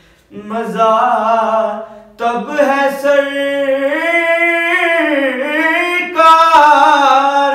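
A man reciting a naat unaccompanied, singing long held, wavering notes in three phrases with short breaths between them.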